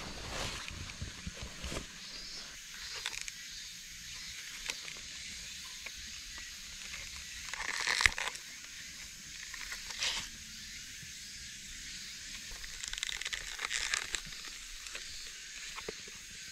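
Rustling and handling noises as a knife is taken out of a cloth drawstring bag and turned over in its sheath, with a fire-starter rod being drawn from the sheath near the end. Short scrapes and rubs stand out about eight seconds in, again near ten seconds, and in a cluster around thirteen to fourteen seconds, the first being the loudest.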